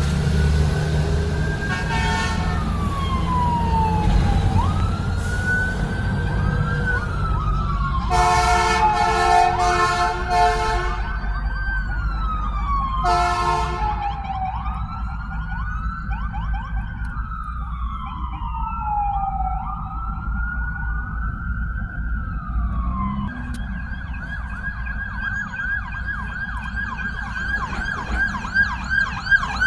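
Emergency vehicle siren wailing, its pitch sweeping slowly up and down, broken by a few loud horn blasts about eight to eleven seconds in and one more a couple of seconds later; from about two-thirds of the way through it switches to a fast yelp. Steady road traffic rumbles underneath.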